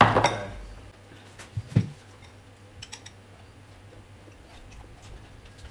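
Plates and cutlery knocking and clinking on a dining table: a sharp knock at the start, another just under two seconds in, then a few faint ticks.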